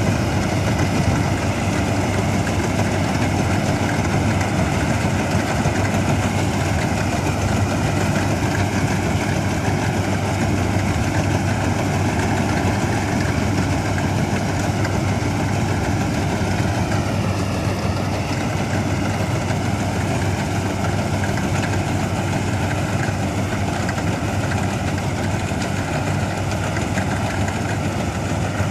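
1965 Ködel & Böhm Köla Combi Special combine harvester running steadily, a constant loud engine-and-machinery noise with no let-up.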